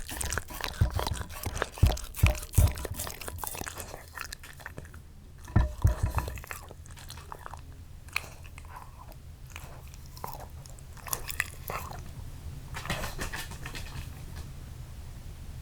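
A Shiba Inu chewing and crunching something hard, such as dry food or a treat, with loud crunches for the first six seconds and then fewer, softer clicks.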